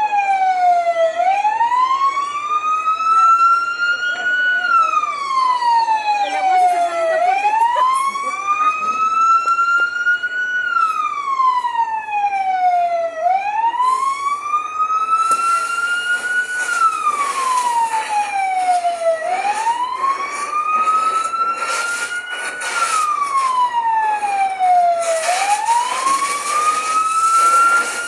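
Emergency-vehicle siren on a slow wail, climbing over about three seconds and sliding back down, repeating about every six seconds. From about halfway in, bursts of hiss and crackling come and go under it.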